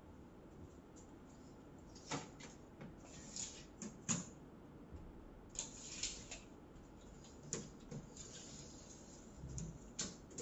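Scattered light clicks, knocks and rustles of small objects handled by hand, including a steel tape measure being pulled out and stretched across a TV screen.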